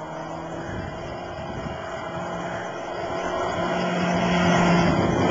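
Motorcycle engine running at a steady pitch under heavy wind and road noise, getting steadily louder.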